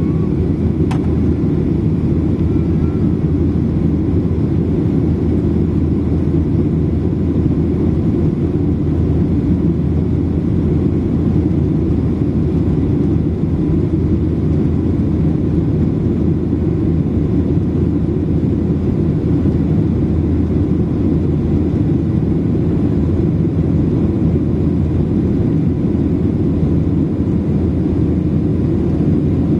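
Airplane cabin noise during the climb after takeoff: a steady, loud, low rumble of engines and airflow heard from inside the cabin.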